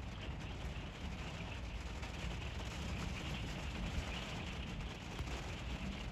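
Light rain pattering as a steady hiss of fine drop ticks, over a steady low rumble.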